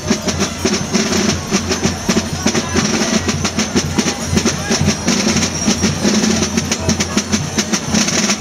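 Carnival drums beating a fast, steady rhythm for a troupe of dancing Gilles. Under the drums is the dense jingling of the bells on the Gilles' belts.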